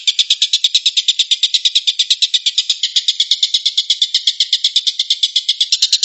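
Oriental dollarbird (tengkek buto) giving its rapid 'tembakan' call: an unbroken run of harsh, high notes, about nine a second.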